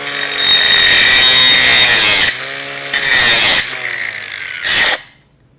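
Grinder tapering a tack weld on steel pipe: the motor runs with a steady whine and bites into the metal three times, one long pass of about two seconds and two shorter ones. It then switches off and winds down near the end.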